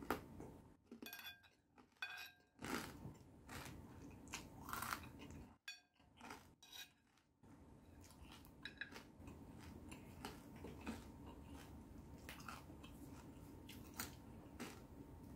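Quiet chewing and crunching of crispy fried fish, crispy pork and pork rinds in a spicy Thai salad, with a metal spoon clinking and scraping on the plate.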